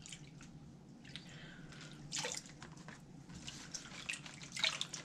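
Water dripping and splashing softly from a plastic gold pan of paydirt being dipped and tilted in a tub of water during panning, with a few louder splashes about two seconds in and near the end.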